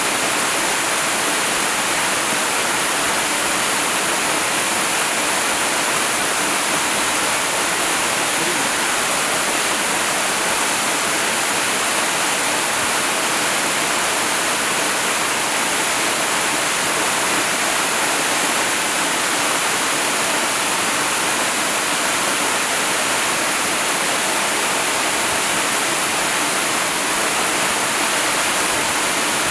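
Waterfall: a steady, unbroken rush of falling water, an even hiss brightest in the high range.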